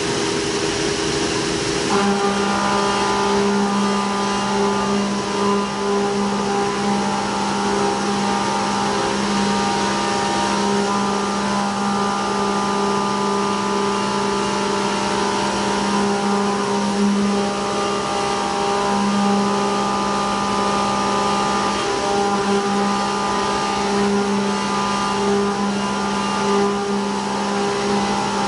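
CNC milling machine's end mill cutting a pocket under flood coolant: a steady cutting hum with several pitched tones over the hiss of the coolant spray. The cutting tone steps up suddenly about two seconds in as the cutter takes a heavier cut.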